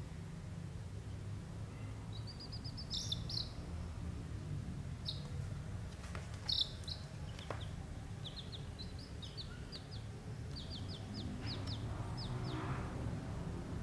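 Young chicks peeping: short, high, falling cheeps in quick runs, beginning about two seconds in and coming more often in the second half, over a steady low hum.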